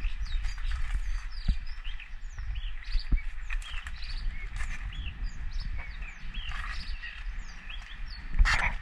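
Birds chirping repeatedly in short, quick calls over a steady low rumble. A short, loud rustling crunch comes near the end.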